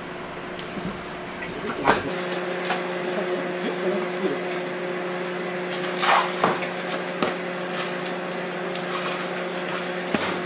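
Gloved hands handling and rolling a warm slab of candy on a work table: a knock about two seconds in, rubbing and knocking around the middle, and another knock near the end, over a steady electrical hum.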